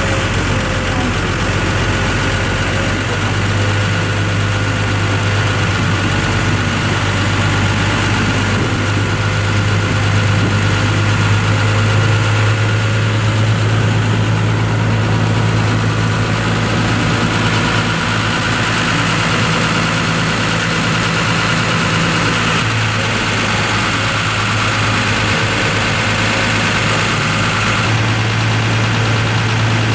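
Isuzu TW bonnet truck's diesel engine idling, a steady low drone.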